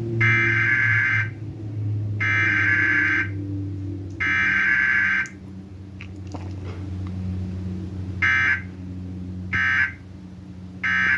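Emergency Alert System Required Weekly Test tones: the SAME digital header sent as three buzzing data bursts of about a second each, a second apart, then a few seconds later the three short end-of-message bursts, again a second apart.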